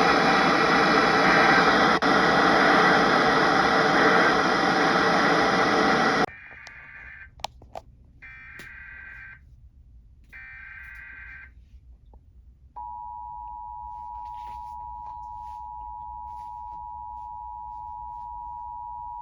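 Loud radio static for about six seconds, cutting off suddenly. Then three short screeching bursts of Emergency Alert System header data, about a second apart, and from about 13 s the steady two-tone EAS attention signal, held without a break: the start of a new weather alert.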